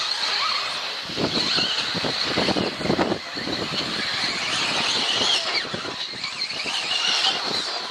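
Electric 4WD off-road RC buggies racing, their motors giving a high whine that rises and falls as they accelerate and brake. There is a burst of clattering between about one and three seconds in.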